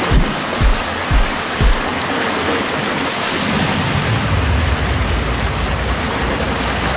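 Rushing river water, a steady hiss. In the first two seconds there are low thumps about twice a second, and from about halfway on a low rumble swells under it.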